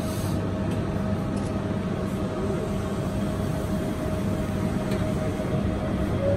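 Cabin running noise of a rubber-tyred automated guideway train (Yurikamome) in motion: a steady rumble with a thin steady whine that rises slightly near the end.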